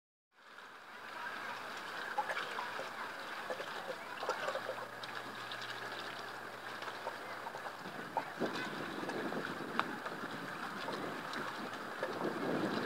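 Water lapping and splashing against the hull of a small inflatable boat, a steady wash of noise broken by many small slaps, with a faint low hum between about four and seven seconds in.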